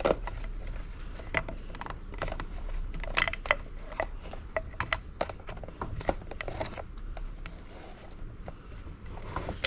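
Irregular light clicks and taps of small parts and tools being handled while a chainsaw's fuel line is fitted, with a steady low hum underneath.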